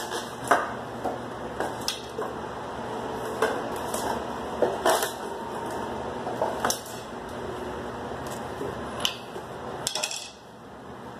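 Irregular clinks and knocks of hand tools and metal fittings as a motorcycle is unfastened from its wooden shipping crate, over a steady background hiss.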